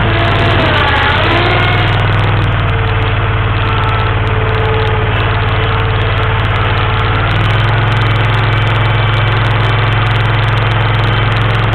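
Terramite T7 mini backhoe's engine running steadily, its note shifting slightly a couple of times.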